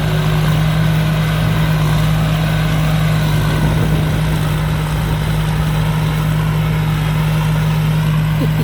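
Rice combine harvester's J08C diesel engine running steadily under load while harvesting, a constant deep drone.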